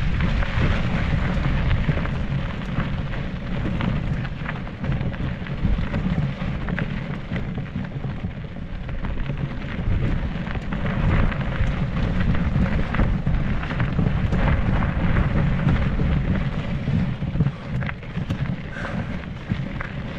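Mountain bike climbing a dry, rocky dirt trail, heard through an action camera: a steady low rumble of wind and bike-borne handling noise, with tyres crunching over grit and small stones and scattered light clicks and knocks.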